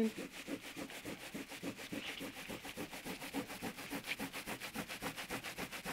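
Microfibre cloth wet with panel wipe rubbed quickly back and forth over a textured vinyl dashboard top, wiping excess polyurethane sealer from a crack, in rapid, even strokes several times a second.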